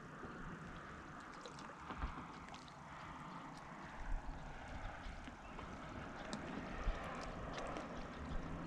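Quiet lakeside ambience: a soft, steady hiss of wind and rippling water, with a few faint light ticks scattered through it.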